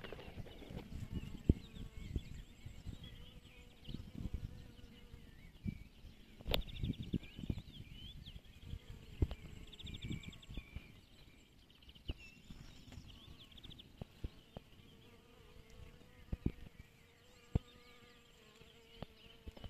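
Flying insects buzzing around meadow flowers: a steady hum that comes and goes. High chirping trills and occasional sharp knocks and low rumbles are heard over it.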